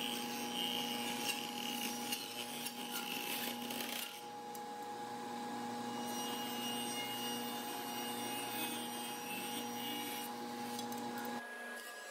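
Table saw running and cutting a solid maple panel to size, a steady motor hum under the rasp of the blade in the wood. The sound changes abruptly shortly before the end.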